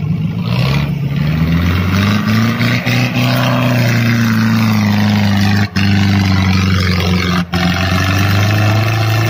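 Jeep CJ7's engine running hard under load as it pulls through deep mud, its pitch rising and then easing back down, with two brief moments where the sound cuts out.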